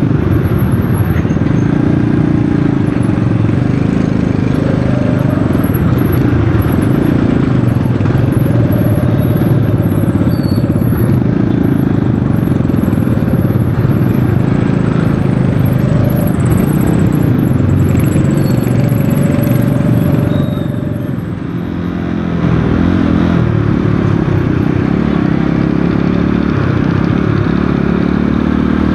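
Rusi Korak 110 motorcycle engine running steadily while riding in traffic, with a brief dip in loudness a little past three quarters of the way through.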